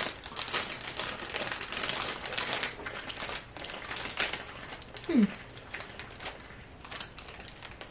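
Plastic snack packet crinkling and rustling as it is handled, in irregular crackly bursts.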